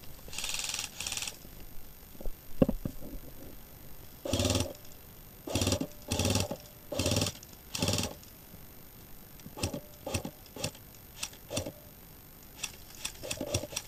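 Footsteps crunching through dry undergrowth at a walking pace, with a short rustle near the start.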